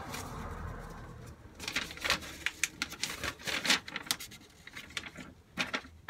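Paper and a padded envelope rustling and crinkling as papers are pulled out by hand, with a cluster of short crackles from about a second and a half in to about four and a half seconds in.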